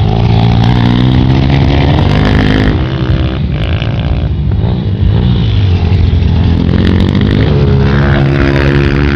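Honda CRF230 dirt bike's single-cylinder four-stroke engine under way, revving with its pitch rising and falling several times.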